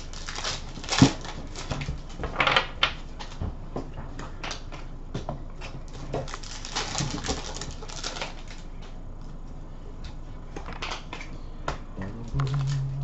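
Trading cards being handled: foil card packs torn open and cards flicked through and set down on a glass counter, making an irregular run of sharp clicks and crinkly rustles, the loudest click about a second in.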